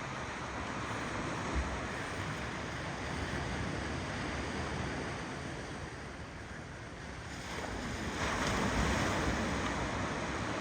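Ocean waves rolling onto a shore: a steady wash of surf that eases off for a moment, then swells again as a louder wave breaks about eight seconds in.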